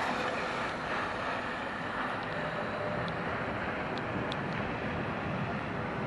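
Articulated tram passing close on curved track over wet rails, with a steady rumble and hiss and wind on the microphone. A few brief high-pitched squeaks sound midway through.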